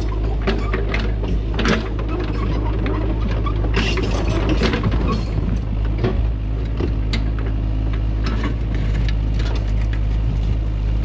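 Kubota U55 mini excavator's diesel engine running steadily under load as it tracks over the fresh backfill, with frequent knocks and clatters of its tracks and of dirt and rocks.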